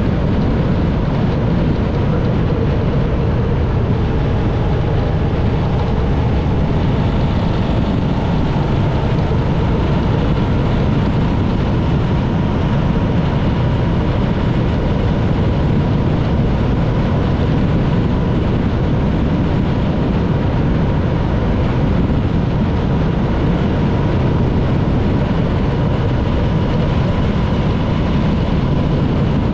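Motorcycle on the move: engine running under steady road speed, mixed with heavy wind and road noise.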